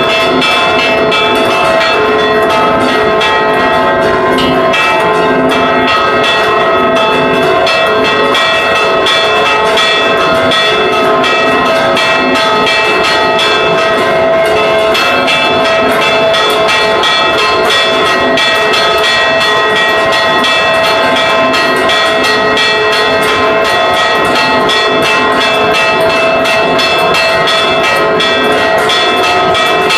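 Church bells rung in a Mexican-style repique: several hanging bells struck rapidly by clappers pulled on ropes, making a loud, continuous peal of overlapping ringing tones heard close up inside the belfry.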